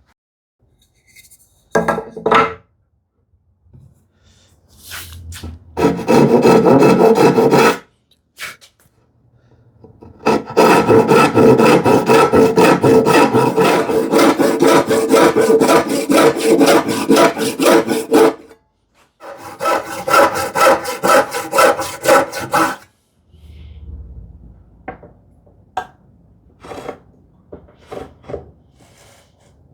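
Hand saw cutting wood in quick back-and-forth strokes, in three runs: a short one about six seconds in, a long one of about eight seconds, then a shorter one. After that, only light taps and handling.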